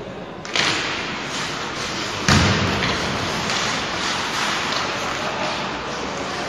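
Ice hockey play: skates scraping on the ice and sticks clacking as play starts from a faceoff about half a second in, with one loud thud about two seconds in.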